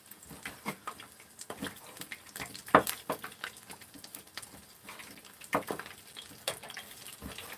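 Irregular knocks and clicks of a kitchen knife cutting raw squid on a wooden cutting board, with a metal turner knocking in a frying pan. The loudest knock comes about three seconds in.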